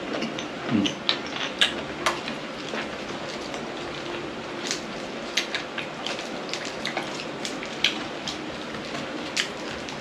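Eating sounds: scattered, irregular sharp clicks and smacks of chewing blanched baby octopus and blood cockles, over a steady hiss with a faint low hum.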